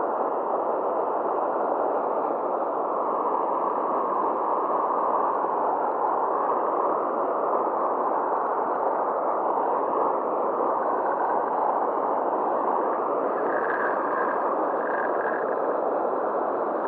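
Steady rushing of turbulent river water pouring through a weir and churning into whitewater below it, an even, unbroken noise.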